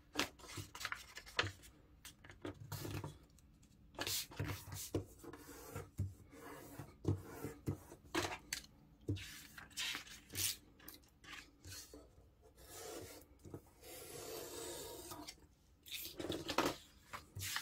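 A sheet of A4 printer paper being creased and handled by fingers: a run of short, faint rubbing and crinkling strokes, with one longer steady rub late on.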